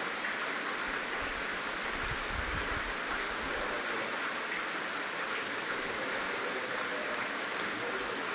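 Steady background hiss, with a few faint low bumps between one and three seconds in.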